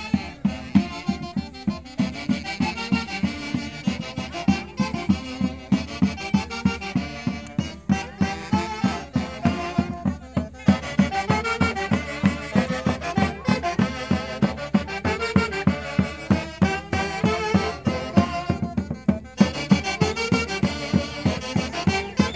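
Brass band with saxophones and a drum playing a dance tune with a steady beat.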